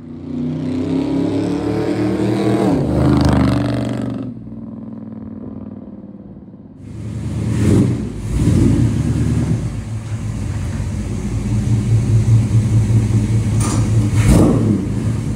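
1972 Chevrolet K30 pickup's engine revving up with rising pitch, dropping off about four seconds in. After a quieter stretch it runs again, idling with a low rumble and blipped briefly several times.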